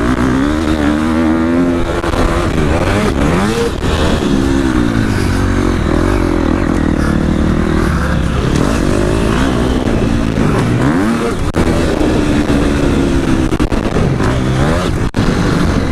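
Husqvarna motocross bike's engine ridden hard on a dirt track, revving up and falling back over and over as the throttle opens and closes through the turns, heard close up from a helmet-mounted camera.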